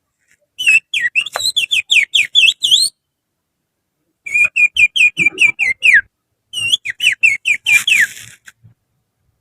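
Finger whistling imitating the song of an Oriental magpie-robin (kacer): three runs of quick, sharp whistled notes, each run lasting one to two seconds, with short pauses between them.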